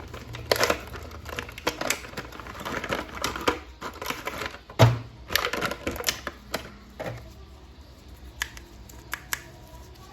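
Hands handling a plastic action figure and its parts: a run of clicks and taps, with one louder knock about five seconds in, then sparser clicks.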